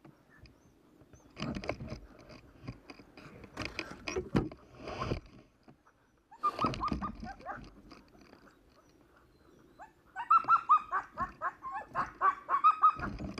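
Sled dogs in harness barking and yelping in short bursts, then breaking into a quick run of high yips about ten seconds in: a stopped team impatient to get moving again.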